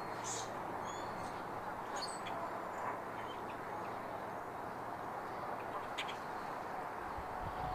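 Outdoor ambience: a steady background rush with scattered short bird chirps. Low wind buffeting on the microphone comes in near the end.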